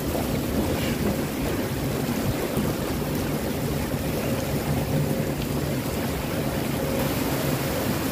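Steady rumble and rushing noise of a river-rapids ride raft riding up the ride's conveyor lift ramp, with water running.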